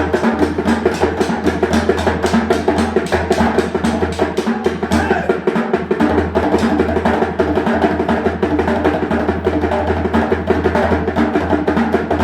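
Music driven by fast, even drumming over a steady bass line.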